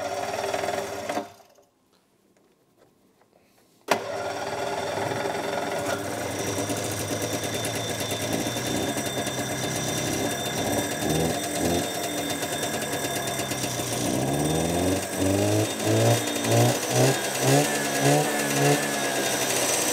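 Polaris Indy Lite snowmobile's two-stroke engine catching suddenly about four seconds in and running steadily, then revved in a quick series of throttle blips near the end. The owner judges that something is still not right with how it runs, in a series about a bogging, sluggish engine.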